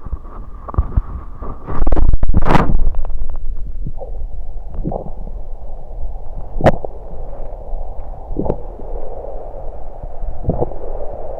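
Soda gulps and stomach gurgles heard through a microphone against the belly as the drink flows down. There is a loud stretch about two seconds in, then single sharp gurgles every second or two over a steady rushing noise.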